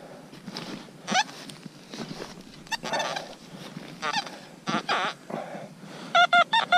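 Metal detector signalling a buried metal target: short rising chirps as the coil passes over it, then from about six seconds in, rapid even beeps at one steady pitch, about four a second, as the target is pinpointed in the opened plug.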